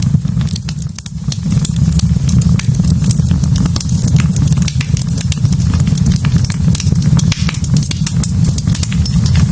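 Wood fire burning in a fireplace, crackling and popping with many sharp snaps over a steady low rumble.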